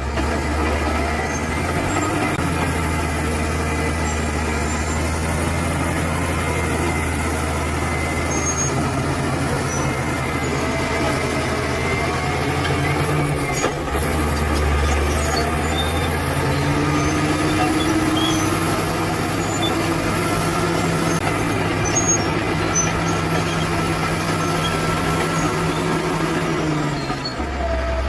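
Bulldozer's diesel engine running steadily under work, its note shifting a couple of times as the load or throttle changes.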